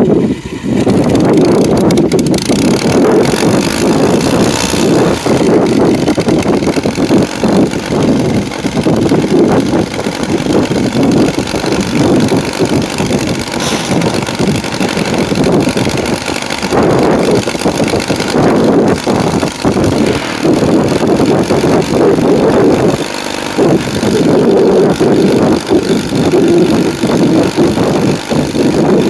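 Engine of an antique sawmill's power unit running loud and steady, its level wavering slightly as it runs.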